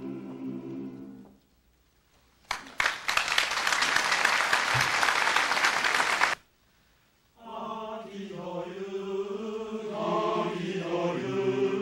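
Men's choir holding a final chord that ends about a second in; after a short pause, audience applause, which cuts off suddenly. About two seconds later the men's choir starts singing again.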